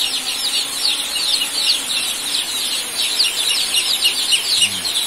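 A brooder full of young joper chicks peeping nonstop, hundreds of short, high, falling peeps overlapping into a continuous chorus.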